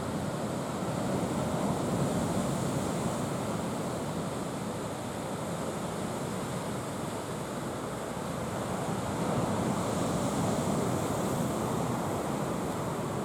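Sea surf washing onto the shore as a continuous rush that swells and eases slowly. It is louder about two seconds in and again around ten seconds.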